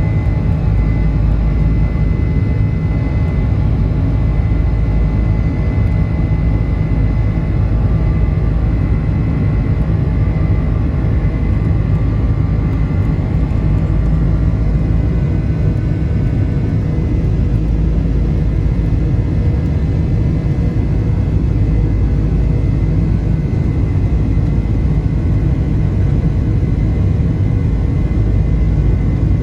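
Boeing 747-400 jet engines running: a steady, loud airliner rumble with a faint high whine over it.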